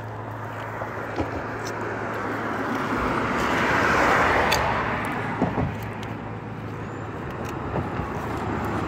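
A passing car's tyre and engine noise swells to a peak about four seconds in and fades, and another vehicle approaches near the end. A few small clicks sound over it.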